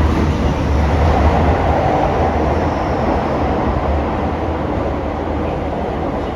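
Toei 10-300 series subway train running between stations, heard from inside the car: a steady loud rumble of wheels on rail with dense running noise.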